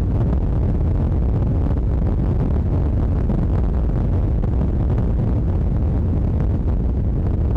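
Steady, loud wind noise buffeting the microphone: a low rumbling rush with no letup.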